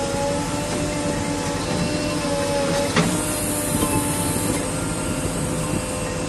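JCB 3DX backhoe loader's diesel engine and hydraulics running, heard from inside the operator's cab as the backhoe digs, with a steady whine over the engine. A single sharp knock about three seconds in.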